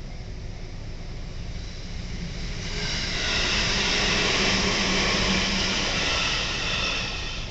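Electric commuter train passing over a level crossing. Its running noise builds from about two and a half seconds in, is loudest in the middle, and eases off near the end.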